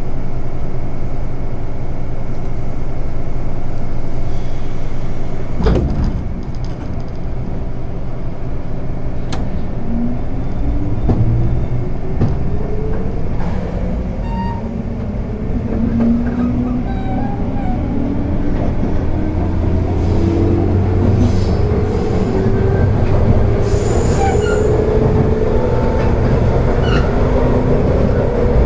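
Onboard running sound of a JR 201 series chopper-control electric train: steady rumble of wheels on rail, with a single sharp knock about six seconds in. From about ten seconds in, a whine from the traction motors rises steadily in pitch as the train picks up speed.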